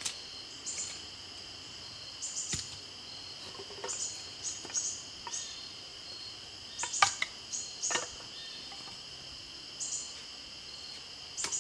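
Crickets or other insects singing steadily, with a scatter of sharp knocks and cracks as a D2-steel bushcraft knife splits and cuts up small pieces of wood. The two loudest knocks come a little past the middle, about a second apart.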